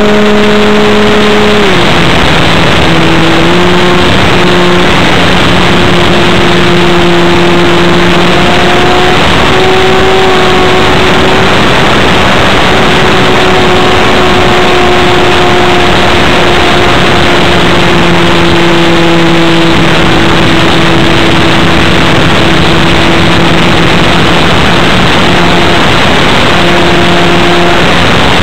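The AirCore 40 RC airplane's small glow engine running at high throttle in flight, heard loud and close from an onboard camera with rushing air over it. Its steady drone drops slightly in pitch about two seconds in, then wavers a little as the plane manoeuvres.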